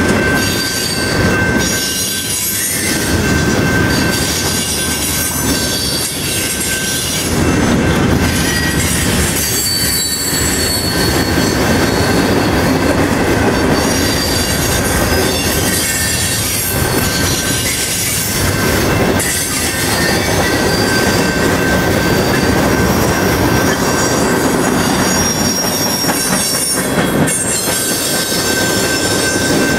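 Cars of a mixed freight train rolling steadily past close by: a continuous rumble of steel wheels on rail, a steady high-pitched wheel squeal with brief higher squeals over it, and an occasional clack from the trucks.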